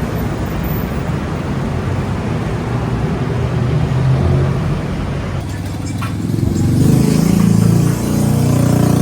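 Road traffic noise, with a motor vehicle's engine running close and growing louder in the last few seconds.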